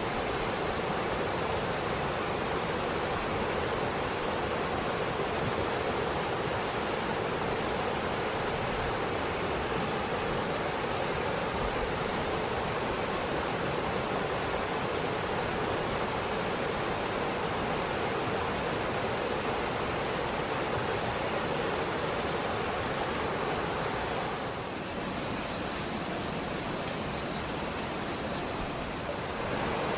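Insect chorus, a steady high-pitched shrilling over a constant rushing background noise. The insects grow louder for a few seconds near the end.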